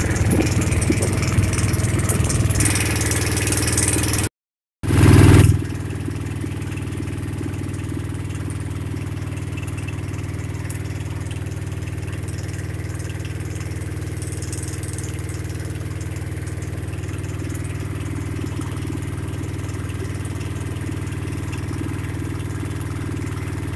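A small wooden boat's engine running steadily under way. For the first four seconds a loud rushing noise lies over it. The sound cuts out briefly about four seconds in, then the engine carries on at an even, unchanging drone.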